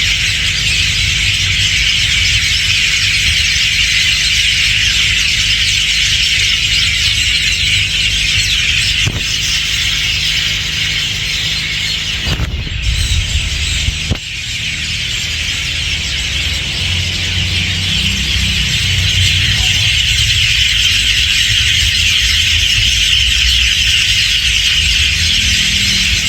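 Dense chorus of hundreds of birds calling at once: a loud, continuous, high-pitched chatter with no pauses. A low rumble runs underneath, and a few brief knocks fall near the middle.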